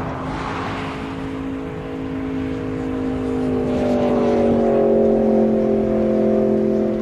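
Jet airliner's engines passing close, a whine of several tones that slowly falls in pitch, growing louder to a peak about five seconds in.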